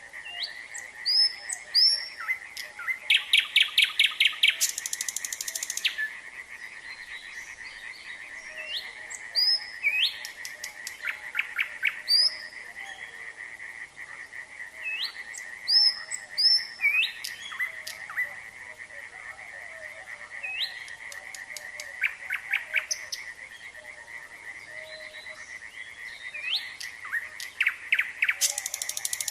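A nightingale singing in short phrases of rising whistles and rapid trills, over a steady chorus of frogs calling in a fast, even pulse at one pitch.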